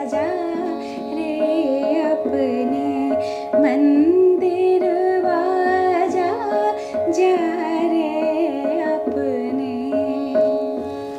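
A woman singing the sthayi of a chhota khyal in Raag Bhimpalasi, pitched at C-sharp, in gliding ornamented phrases over a steady tanpura drone and tabla keeping teentaal.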